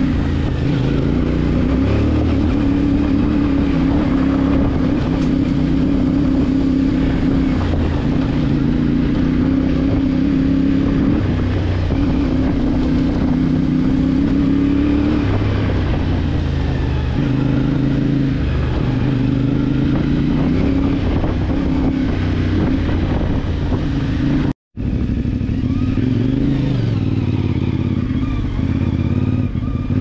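CFMOTO 450MT parallel-twin engine running under way on a trail, its pitch rising and falling with throttle. The sound cuts out completely for a moment about three-quarters of the way through.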